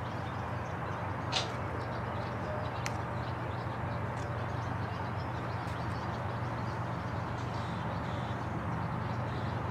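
Outdoor trackside ambience: a steady low hum under even background noise, with faint bird chirps and a sharp click about a second and a half in.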